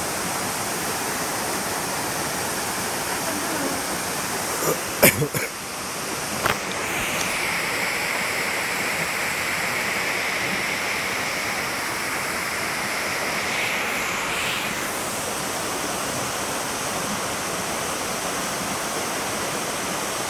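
Waterfall pouring, a steady rush of falling water. A few sharp knocks come around five seconds in and again a little later, and for several seconds in the middle the rush sounds brighter and hissier.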